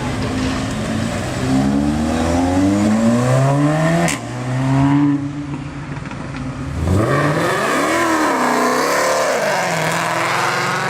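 Supercar engines revving and accelerating hard, the pitch climbing and dropping in steps as the cars shift up. The sound cuts to a different car about four seconds in and again near seven seconds, where an engine is revved up and down.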